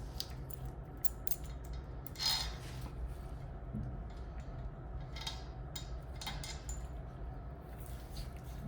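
Hand tools working on metal: a few short clicks and scrapes of a wrench against a pulley's fittings, the loudest about two seconds in, over a steady low hum.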